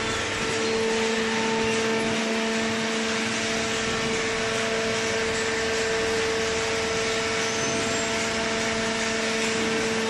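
Small hydraulic cardboard baler's motor and hydraulic pump running steadily: a constant hum with a steady whine.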